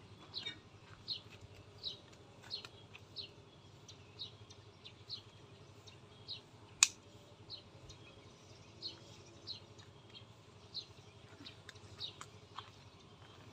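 A small bird chirping repeatedly, short high notes about once or twice a second. About seven seconds in comes a single sharp snip of pruning shears cutting a bougainvillea stem for a scion.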